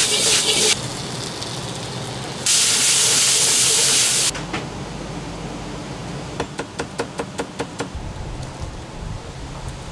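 Stir-frying in a wok over a high gas flame: a loud sizzling hiss that starts and stops abruptly, loudest for a couple of seconds about two and a half seconds in, when the flames flare in the wok. Later comes a quick run of about ten knife strokes, about six a second, on a plastic cutting board as a chef's knife slices roast pork.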